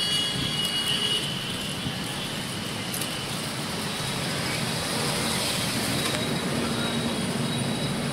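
Steady noisy rumble of a vehicle moving along a road, with no distinct events.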